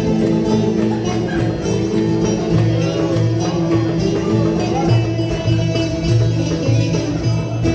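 Live Turkish folk dance music: a bağlama (long-necked saz) plucked over a goblet drum keeping a steady beat.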